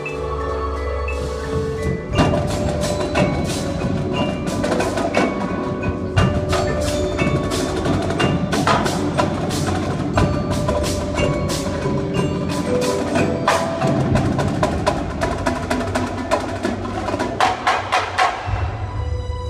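Indoor percussion ensemble playing: marching drums hammer out fast, sharp rhythms over marimbas and other mallet keyboards. A low held tone opens, the drums and mallets come in about two seconds in, and the strikes stop near the end, leaving held notes ringing.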